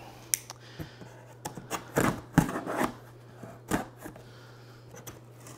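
Box cutter slicing through the packing tape on a cardboard box: a few light clicks, then short scraping rasps of the blade along the taped seam, loudest about two seconds in.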